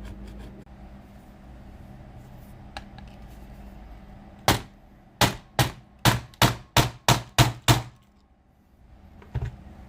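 Repeated sharp blows against a laptop CPU being forced open: a quick run of about nine hits, then one weaker hit after a short pause.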